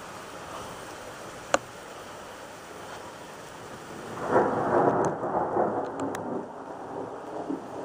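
Steady rain hissing, with one sharp click about a second and a half in. From about four seconds in, thunder rolls in, loudest at its onset and rumbling on unevenly after lightning flashes.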